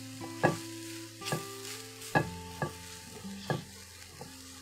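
Silicone spatula stirring grated cabbage and gram-flour stuffing in a cast iron skillet, with a sharp knock against the pan about once a second over a light frying sizzle.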